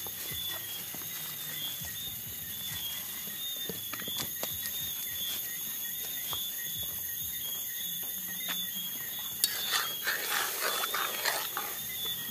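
Insects chirping steadily in a rapid high pulsing trill, with a brief cluster of louder irregular noises about ten seconds in and a few scattered clicks.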